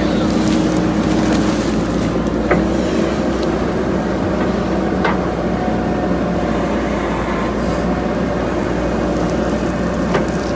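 JCB 3DX backhoe loader's diesel engine running steadily, with two brief knocks from the machine.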